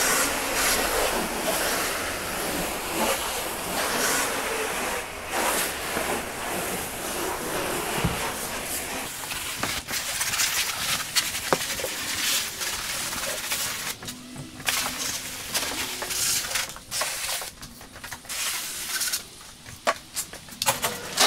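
Garden hose nozzle on its flat, higher-pressure spray setting, hissing and splattering as it washes water over a car's body panels to rinse off road salt. In the last several seconds the spray goes on and off in short spurts.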